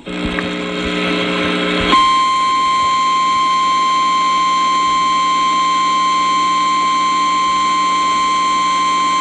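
A weather radio hissing with a low hum, then, about two seconds in, the NOAA Weather Radio 1050 Hz warning alarm tone starts: one steady high tone that holds over the radio's hum. It is the signal that a warning, here a tornado warning, is about to be read.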